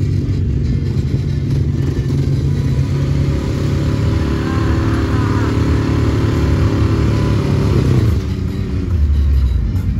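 Engines of a sport quad and a Can-Am Maverick X3 side-by-side running at low speed close by as they roll up, a steady low engine note with small rises and falls. The note changes about eight seconds in.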